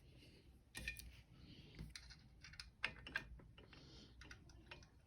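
Faint, irregular clicks and light knocks of a bow vise's clamp parts and knob hardware being handled and fitted onto a bow press, with a few sharper taps a little under a second in and around three seconds in.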